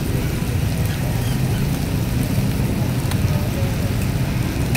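Raw chicken pieces sizzling steadily on a hot, oiled flat-top griddle.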